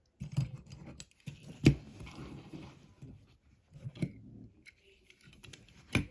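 Die-cast toy cars and their plastic packaging being handled: irregular clicks, rustles and small knocks, with a sharp knock about a third of the way in and another near the end.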